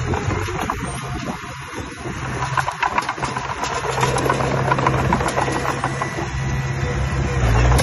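Engine of heavy construction equipment running steadily, louder near the end, with scattered clicks and rattles over it.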